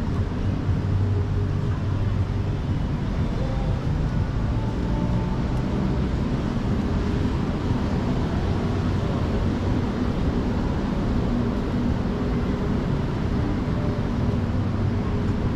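Steady city street ambience: a low, unbroken rumble of traffic on a busy avenue.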